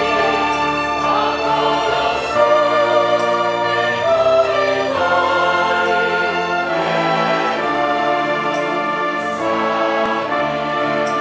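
Mixed choir of men and women singing, accompanied by a string orchestra of violins.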